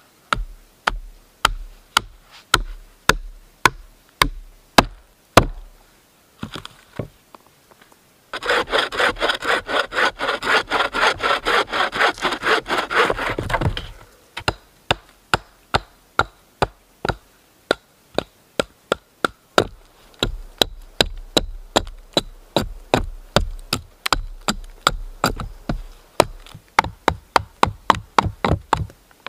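Hand saw cutting through wood in regular back-and-forth strokes, about two a second. After a short pause it speeds up to four or five strokes a second and is louder for several seconds in the middle, then slows again.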